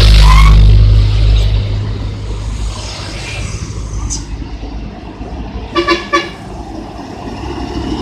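A truck passes close with its engine loud for the first second or so, over the last short note of a musical 'telolet' horn. Road traffic goes on more quietly, and about six seconds in a vehicle horn gives two short toots.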